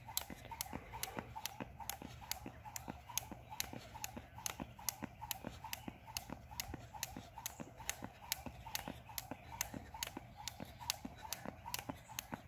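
A jump rope slapping an asphalt road on every turn while someone skips steadily: a fast, even run of sharp slaps, about three a second.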